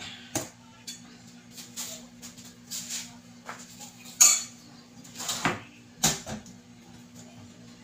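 Dishes and a spoon being handled on a kitchen counter: scattered clinks and knocks, the loudest about four seconds in.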